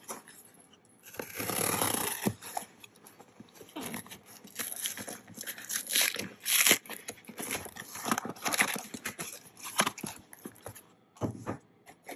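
Cardboard shipping box being opened by hand: short, irregular scraping, rustling and tearing of cardboard and packing tape.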